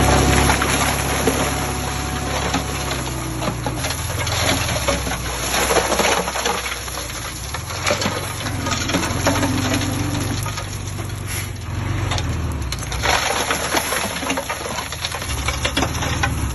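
A heavy diesel engine runs while loose dirt and stones tumble and clatter, in the way a dump truck's load spills from its tipping bed.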